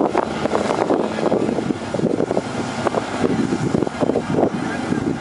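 Off-road race car engines heard from beside a dirt course, mixed into a steady, rough background noise.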